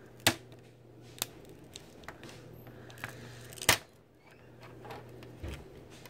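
Quiet handling noise as a taped-down ribbon cable is peeled up off a plastic laptop palmrest: a few sharp clicks and ticks, the loudest about two-thirds of the way through, over a low steady hum.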